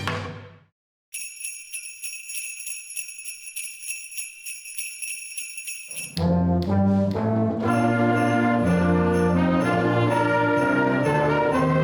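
The previous song dies away, followed by a moment of silence. Sleigh bells are then shaken alone for about five seconds. About six seconds in, a brass-led band comes in playing a melody over the continuing bells.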